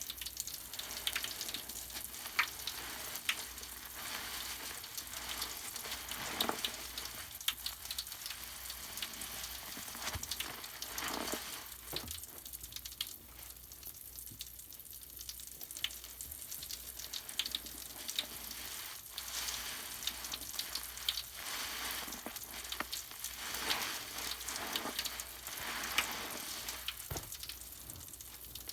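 Magic bath crackles fizzing in water: a steady fine crackle of many tiny pops, with a few louder pops scattered through.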